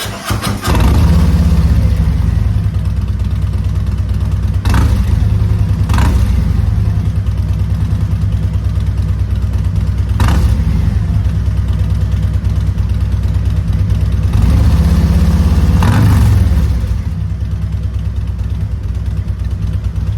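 Harley-Davidson Road Glide's Milwaukee-Eight 117 V-twin starting and idling through Rinehart slip-on mufflers, with a deep, loud rumble, revved briefly a few times.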